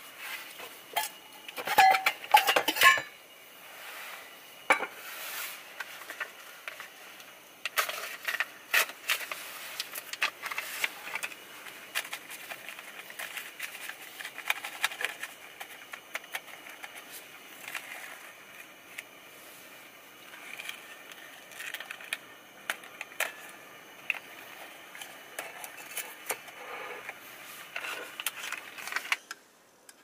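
Stainless camping cookware clinking and rattling as a cup and kettle are handled by a small folding stove, with paper rustling as a drip-bag coffee is opened and hung on the cup. The loudest clatter comes in the first few seconds, then lighter clinks and rustles.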